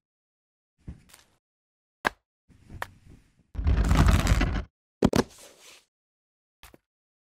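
Wooden rolling pin rolled across a bamboo cutting board in one loud rumble of about a second, with sharp knocks of things set down on the wooden board before and after it, a double knock coming just after the rolling.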